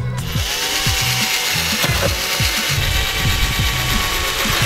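Power drill running, spinning up and then boring a starting hole through a fiberglass widebody over-fender into the car's body panel beneath, with background music that has a steady beat.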